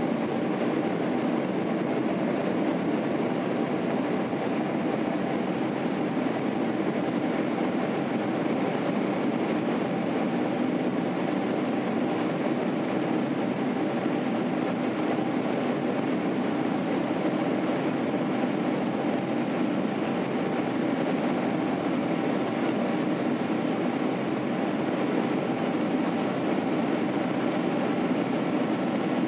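Steady cabin noise inside a Boeing 767-300 airliner climbing after takeoff: an even engine and airflow drone heard from a seat over the wing, with a few faint steady tones running through it.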